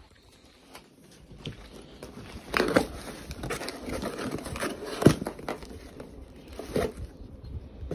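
Crumpled brown packing paper and a cardboard shipping box rustling and crinkling as hands rummage through the box to pull items out. It starts about two seconds in, with louder crackles about two and a half, five and nearly seven seconds in.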